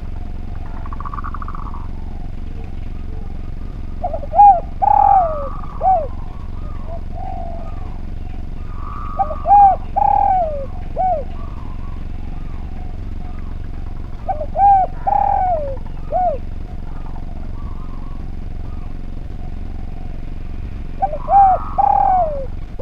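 Spotted dove (derkuku) cooing: four phrases of several short coos bending down in pitch, repeated about every five seconds, over a steady low hum.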